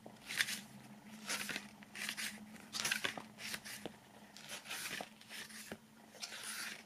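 Paper pages of a thick CD booklet being turned one after another, each turn a short soft rustle, about one a second, over a faint steady low hum.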